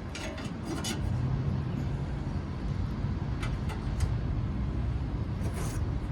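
Light metal clicks and clinks as hooks are put on a metal grill tool basket, a few scattered over several seconds, over a steady low hum.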